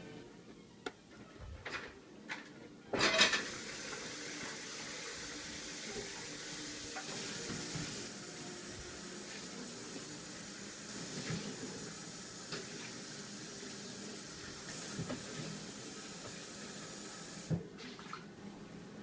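Water running steadily, starting with a loud clatter about three seconds in and stopping with a knock near the end, with a few small clinks along the way.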